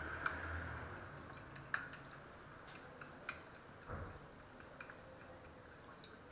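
A few faint, irregular clicks and taps of kitchenware handled at the counter while mixing a batter.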